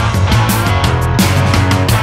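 Background music with a steady beat and a strong, sustained bass line.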